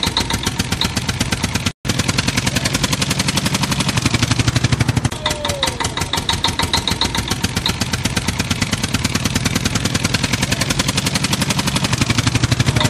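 Tractor engine sound effect running with a rapid, even chugging beat, cutting out for an instant about two seconds in, with a short falling squeal about five seconds in.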